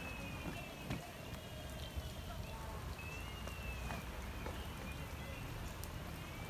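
Light rain pattering, with scattered drips and taps at irregular moments.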